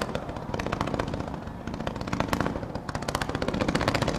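Fireworks finale: volleys of fan-shaped bursts fired low over the water, a rapid, continuous run of sharp bangs and crackling.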